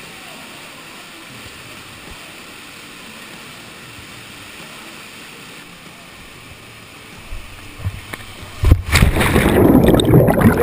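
Steady rush of a canyon waterfall, then about eight and a half seconds in a sudden loud splash as a person plunges into the pool, followed by muffled churning heard underwater.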